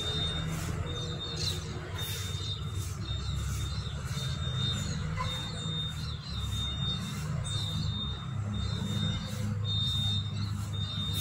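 Outdoor background sound: a steady low rumble with birds chirping on and off and a faint thin high whine.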